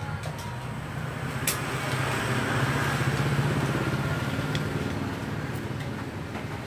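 A motor vehicle engine running steadily, growing louder for a couple of seconds and then easing off. A single sharp metal click comes about one and a half seconds in.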